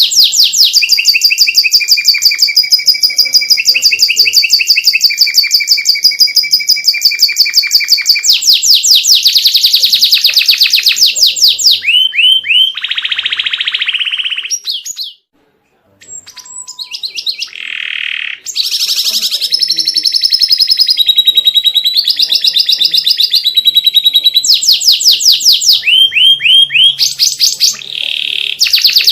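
Domestic canary singing: long, fast, rapidly repeated trills and rolls of high notes, changing from one trill type to the next, with a brief pause about halfway.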